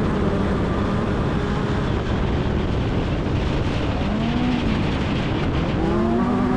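Off-road race vehicle running at speed: engine note under a dense rushing noise, its pitch rising and falling about four seconds in, then climbing again to a steady note near the end.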